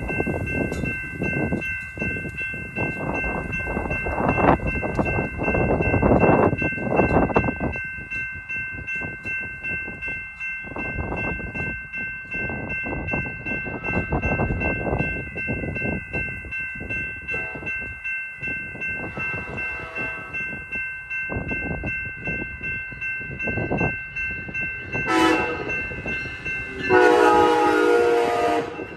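Amtrak California passenger train, a Siemens SC-44 Charger locomotive with a cab car, going over a grade crossing: wheels rumbling and clattering on the rails while the crossing bells ring steadily. Near the end its Nathan K5LA horn sounds a short blast and then a longer one.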